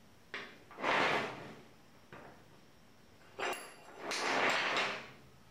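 Steel rods and a homemade mechanical finger being handled on a steel welding table: light knocks and two longer scrapes of steel on steel, about a second in and again near the end, with one sharp clink that rings briefly about three and a half seconds in.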